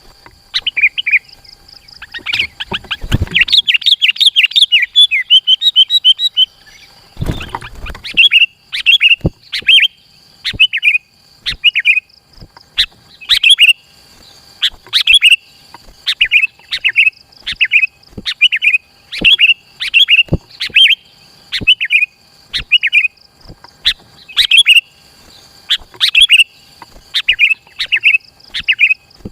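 Sooty-headed bulbul singing loudly. A fast burst of chattering notes in the first few seconds gives way to short, bright phrases repeated about once a second.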